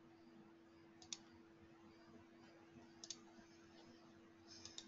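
Near silence: a faint steady hum with a few faint, sharp clicks, one about a second in, a quick pair about three seconds in and a short cluster near the end.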